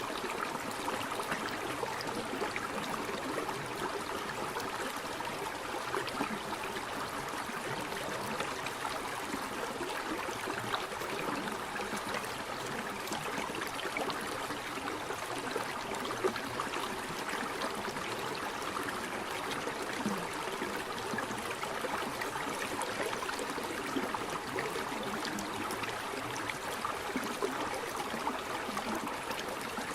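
Waterfall: water falling and splashing with a steady, even rush.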